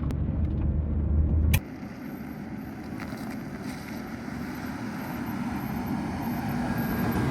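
Camper van driving on a mountain road: steady engine hum and road noise. About a second and a half in there is a click and the sound drops suddenly to a quieter, steady run that slowly grows louder.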